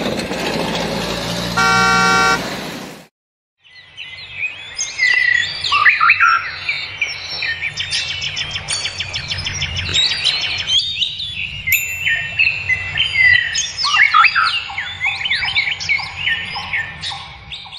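Road traffic noise with a car horn honking for about a second. After a brief cut, many birds chirp and sing busily over a low rumble for the rest of the time.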